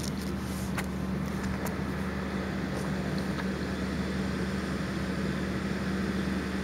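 Steady low motor hum, unchanging in pitch.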